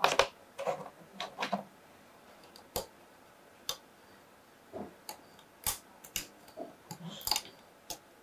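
Plastic spudger clicking and tapping against a smartphone's logic board as it pries up and pops off the flex-cable connectors: about a dozen sharp, irregular clicks.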